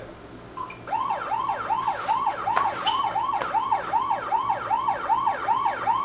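Sifely smart door knob's built-in lockout alarm. A short beep, then a warbling siren-like tone that rises and falls about three times a second, set off by repeated failed fingerprint reads that have locked the system.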